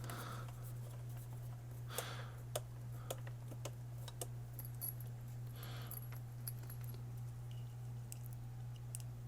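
Small screws and metal parts clicking and jingling as they are handled and sorted, a few sharp ticks a second apart, over a steady low hum.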